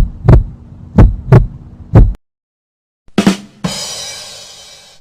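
Heartbeat sound effect: paired low thumps, about one pair a second, which stop about two seconds in. After a short silence comes a single drum hit, then a cymbal-like crash that fades away.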